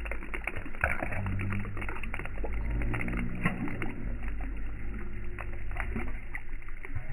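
Large carp slurping floating food at the water surface, with repeated wet sucking clicks and small splashes over low, shifting droning tones.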